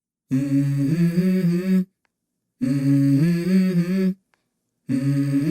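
Song intro: a man's voice humming the same short 'mm-hmm' phrase three times, each stepping up in pitch, with silent gaps between.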